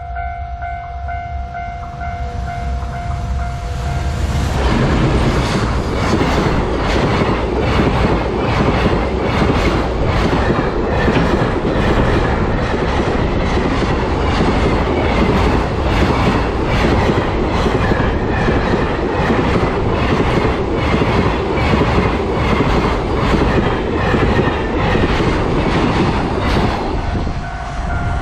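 Level crossing warning bell ringing with a steady tone. About four seconds in, a freight train hauled by an EF210 electric locomotive passes close by: a loud rumble with a rapid clatter of wheels over rail joints that lasts a little over twenty seconds. Near the end the train's noise falls away and the crossing bell is heard again.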